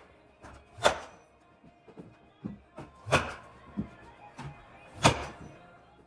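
A series of sharp, irregularly spaced knocks, each ringing briefly. The loudest come about a second in, just after three seconds and about five seconds in, with fainter ones between.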